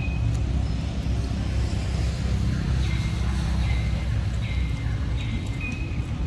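Steady low rumble, like passing traffic. Above it, short high chirps and a buzzing call repeat between about three and five seconds in.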